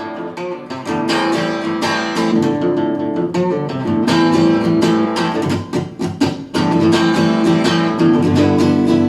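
Guitar strummed and picked in an instrumental passage of a song, with no singing; the playing thins out briefly about six seconds in, then full strumming resumes.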